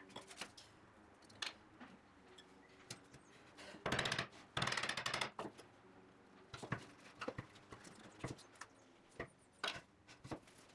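Chisel paring out the remaining waste of a pine bridle joint: faint scattered taps and scrapes of steel on wood, with a quicker run of clicks about four to five and a half seconds in.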